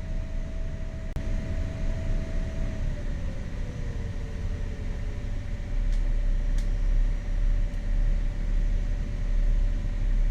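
A motor yacht's twin inboard engines running together at about 1800 RPM, a steady low drone heard on board, with a steady whine that drops slightly in pitch about three seconds in. The low rumble grows louder about six seconds in.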